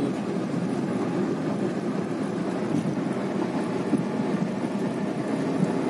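Steady road noise from inside a car cruising on a highway: tyre rumble and engine hum with no change in speed.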